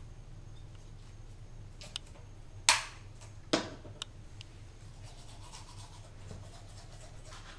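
Toothbrush and toothpaste being handled at a bathroom sink: a few small clicks and two sharp louder knocks about three seconds in. From about five seconds in, a faint scratchy scrubbing of a toothbrush brushing teeth.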